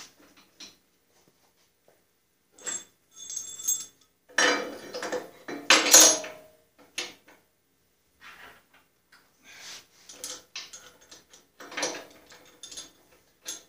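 Metal parts of an older Delta bandsaw being handled and fitted together as the upper frame is fastened onto a riser block: a few ringing metal clinks about three seconds in, a louder cluster of clanks and knocks midway, then scattered lighter clicks.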